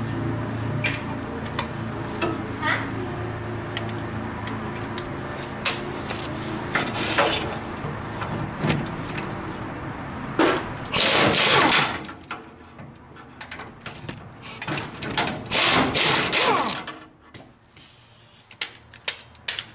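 Pneumatic wrench on a long extension loosening bumper mounting bolts: a steady hum through the first half, then two loud rattling runs of the air tool in the second half, with small clicks and knocks between.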